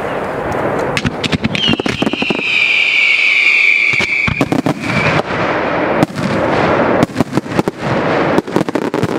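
Fireworks firing from a ground battery: a quick run of sharp bangs and pops, then a loud shrill whistle from about two to four and a half seconds in that sinks a little in pitch. Near the end comes a dense string of sharp bangs.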